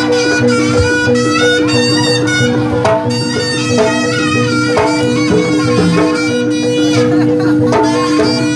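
Live jaranan ensemble music: a reedy, bagpipe-like shawm (slompret) plays a winding melody over steady held drone tones, with light, regular percussion.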